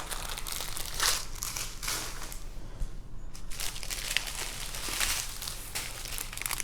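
Small plastic bags of diamond painting drills crinkling and rustling as they are handled, in irregular bursts.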